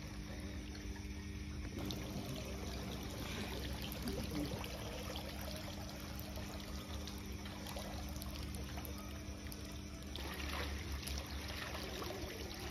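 Steady splashing and trickling of water from a pond aerator spraying onto the surface, with a steady low hum underneath.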